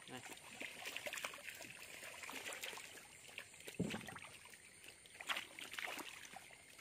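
Farmed frogs crowded in a shallow, water-filled pen stirring and hopping, giving many small scattered splashes and trickling water. There is a louder thump about four seconds in and a sharp splash a second and a half later.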